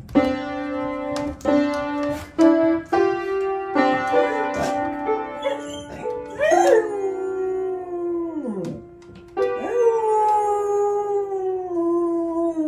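Beagle pawing at the keys of an upright piano, striking single notes and small clusters about once a second, then howling: two long howls starting about six and nine seconds in, each sliding downward in pitch.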